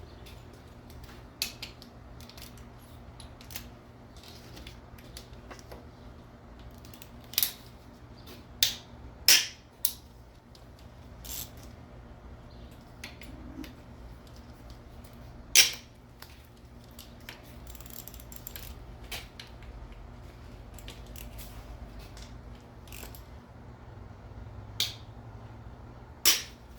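Scattered metallic clicks and clinks of hand tools as hex-head (Allen) bolts on a VG33E engine are worked loose, with about six sharper clinks standing out, over a steady low hum.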